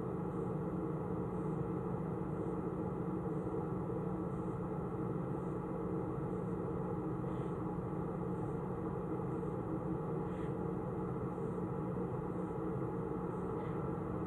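A steady hum with a few held low tones, unchanging throughout, with faint high ticks about once a second.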